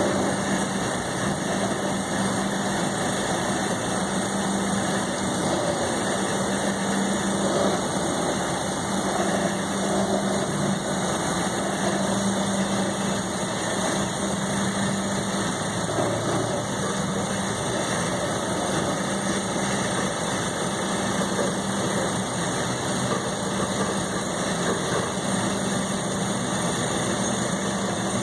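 Inside a TTC Flexity Outlook low-floor streetcar running on its rails: steady cabin noise of the car's running gear, traction equipment and ventilation, with a constant low hum.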